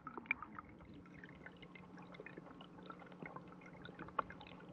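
Stream water trickling and bubbling, heard underwater: a dense, irregular patter of small ticks and pops, with a faint steady low hum beneath.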